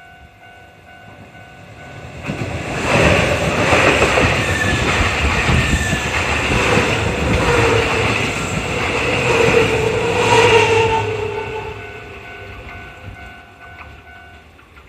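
Japanese level-crossing alarm ringing its steady "kan-kan" warning while a Nankai Koya Line train passes through the crossing. The train is loudest from about 3 to 11 seconds in, then fades away, and the alarm stops shortly before the end.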